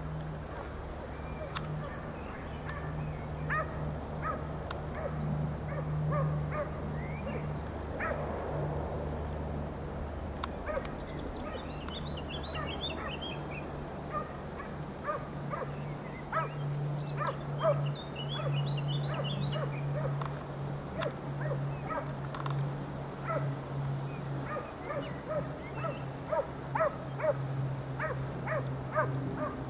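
Hunting hounds giving voice on a hare's trail: repeated short barks and yelps that come more often in the second half. A songbird's quick run of chirps is heard twice.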